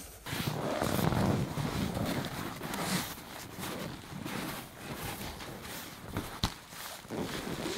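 Rustling and crunching of snow and clothing as a person moves and works in a snow shelter, busiest in the first few seconds, with a single sharp click about six and a half seconds in.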